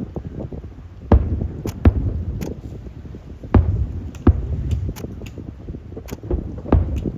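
Aerial fireworks bursting overhead: a string of sharp bangs, about one or two a second, over a continuous low rumble of echoing explosions.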